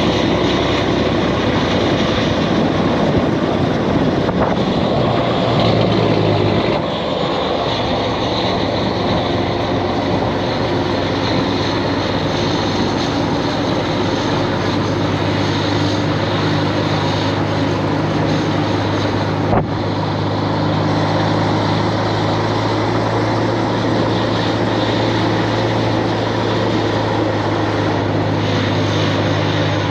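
Semi truck's diesel engine running with a steady drone. The note changes about seven seconds in, then holds at a steady speed.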